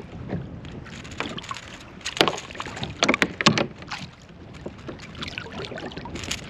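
Water splashing and knocking at a fishing kayak's side as a large bull redfish is fought close to the boat. There are irregular sharp splashes and knocks, the loudest about two to three and a half seconds in.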